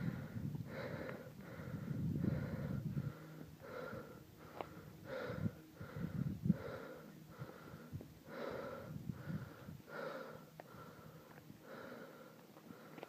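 A hiker breathing hard from the climb, short breaths repeating about twice a second. A low rumble on the microphone sits under the first three seconds, and a few light clicks come through.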